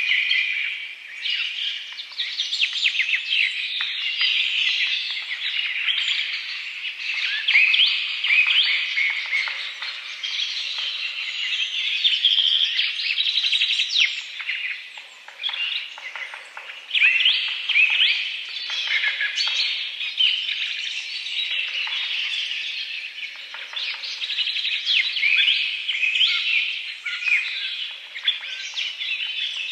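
Several birds chirping and calling over one another in quick, overlapping high-pitched phrases.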